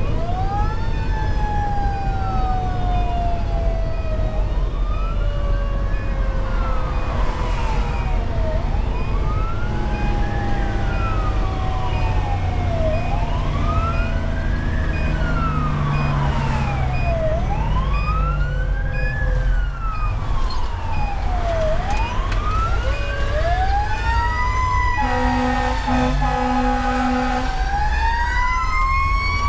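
Fire engine siren on a wail, rising and falling about every four and a half seconds, heard from inside the cab over the drone of the Pierce Velocity's Detroit Series 60 diesel, with a second, lower siren tone sliding slowly down beneath it. Near the end a horn blasts steadily for about two and a half seconds while a siren tone climbs again.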